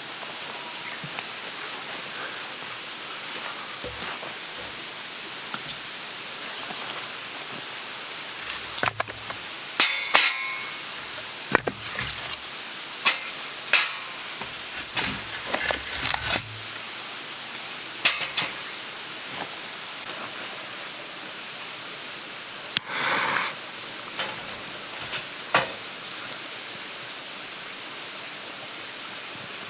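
Steady hiss with a run of sharp knocks and clinks through the middle, a short scrape about two-thirds of the way in, and a few more clicks after it.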